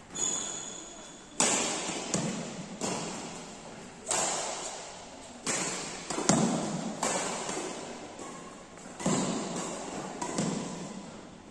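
Badminton rally: rackets hitting the shuttlecock back and forth, about ten sharp strokes a second or so apart, each echoing through a large metal-walled hall.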